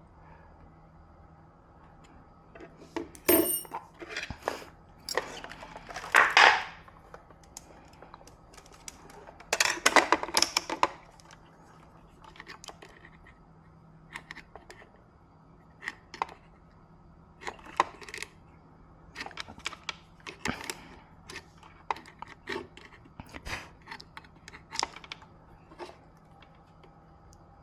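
Small metal objects clinking and clattering as they are handled and set down, with a few louder rattling clusters early on and lighter scattered clicks after.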